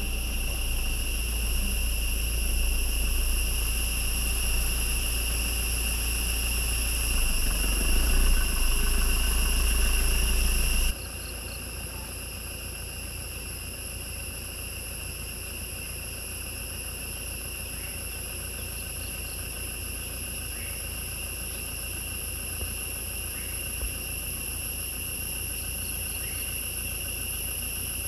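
Forest insects calling in a steady, high-pitched, unbroken drone. For the first ten seconds or so a low rumble runs under it, then cuts off abruptly, leaving the insect chorus alone.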